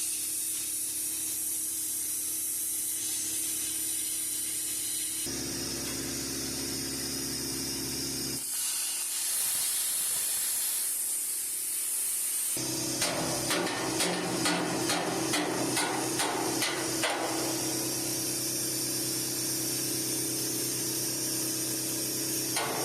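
Metal fabrication noise: a power tool running with a steady high hiss in several abruptly changing stretches. In the second half, a run of sharp hammer-like knocks comes at about three a second, and starts again near the end.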